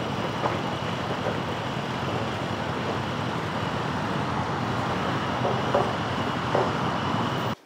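Steady city street ambience of road traffic, a continuous wash of car noise that cuts off abruptly at the very end.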